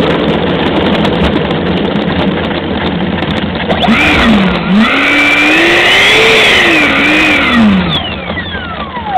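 Electric ducted fan of an HSD Viper 75mm model jet, heard from on board over a steady rushing noise. Midway its whine rises and falls for about four seconds with the throttle, then near the end it winds down in a steeply falling whine.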